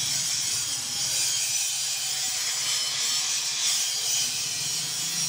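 Belt-driven betel nut crushing machine powered by an electric motor, running with a steady noisy hiss over a faint low hum.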